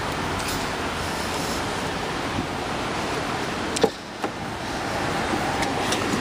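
Steady rushing wind noise on the microphone, broken by a sharp knock about four seconds in, after which it briefly drops quieter before a second small click.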